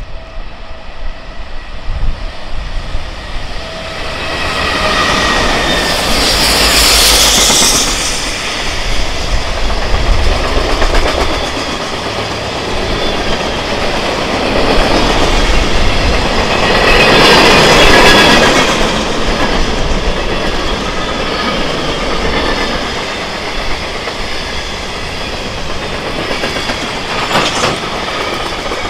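Freight train cars rolling past close by, with wheels clattering over the rail joints and a steady low rumble. Two louder stretches of high wheel screech come about six seconds in and again just past the middle.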